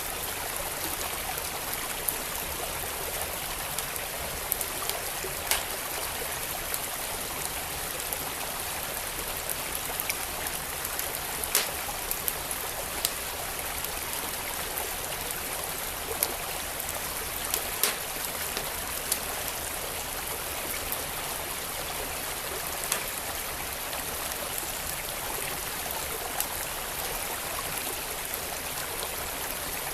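Steady rush of a flowing stream, with sharp pops of a crackling wood fire scattered irregularly over it, about a dozen in all.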